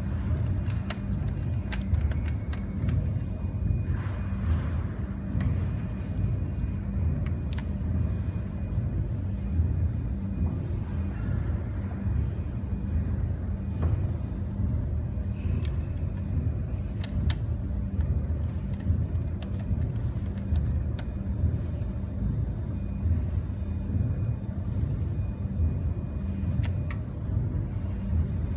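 Steady low mechanical hum and rumble, with scattered faint clicks.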